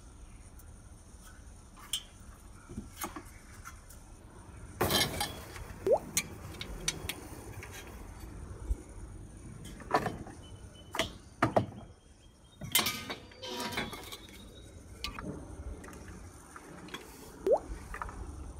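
Scattered clinks, knocks and rattles of Weber kettle grill parts being handled and fitted together: the enamelled steel bowl and grate, then the wire triangle bottom frame and legs. Two short rising squeaks come through, one about six seconds in and one near the end.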